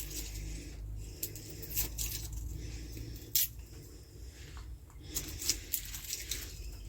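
Faint crackling and scattered small clicks of hands handling garlic cloves and split dried figs, with a few sharper clicks about two and three and a half seconds in and a cluster near the end.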